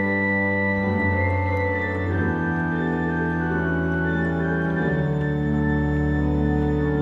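Church pipe organ played in sustained chords, the chord changing about two seconds in and again about five seconds in, as its tuning is checked.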